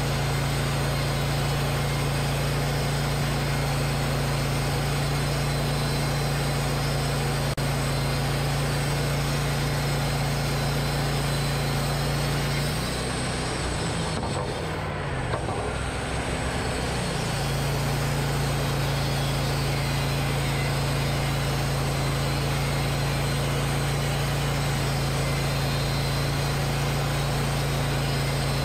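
Wood-Mizer LT40 portable bandsaw sawmill running steadily while its blade saws boards off a log. About halfway through, the engine note drops in pitch for a few seconds and then climbs back up, between one cut and the next.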